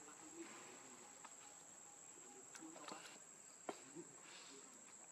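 Faint outdoor ambience: a steady high-pitched insect drone, with a few soft clicks in the middle.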